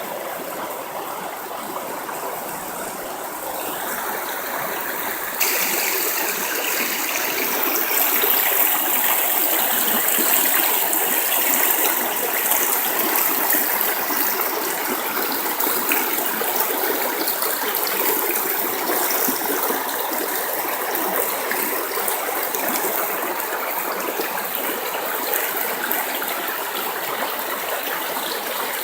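River water flowing in a steady rush, getting louder and brighter about five seconds in.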